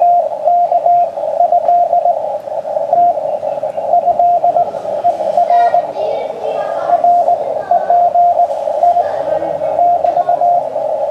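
Morse code received on a shortwave amateur radio transceiver on the 40 m band: a single tone keyed on and off in dots and dashes over narrow-filtered band hiss. The signal is fading in and out, which the operator calls QSB.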